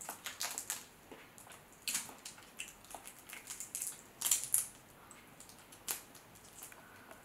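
Boiled shrimp being peeled by hand: the shell cracks and snaps in a run of short crackles and clicks, thickest near the start and again around four seconds in.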